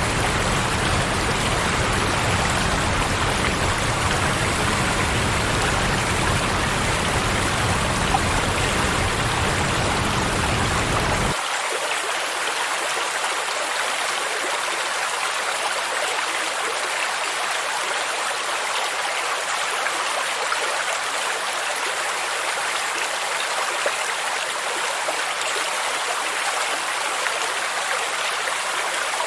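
Steady rushing water of a stream and waterfall, used as sleep noise. About a third of the way in, the deep low rumble cuts off abruptly, leaving a thinner, higher rush.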